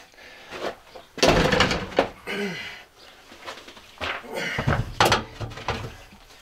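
A heavy battery is set down on a metal battery rack and slid into place on furniture-mover sliders: knocks and scraping in two bouts, about a second in and again about four seconds in.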